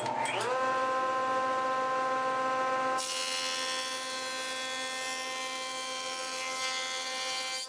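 Jointer switched on, its motor whine rising as it spins up in the first half second, then running steady. From about three seconds in, the edge of a glued-up wooden panel is fed over the cutterhead to joint it square, adding a steady rushing cutting noise over the whine.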